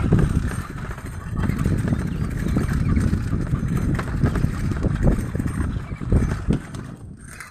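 Dogs fighting, with rough, irregular snarling and scuffling.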